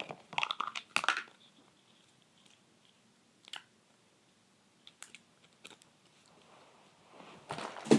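Slime being scooped out of its plastic container to be thrown away: short squishy, crackling handling noises at first, a few isolated plastic clicks in the middle, and more rustling near the end.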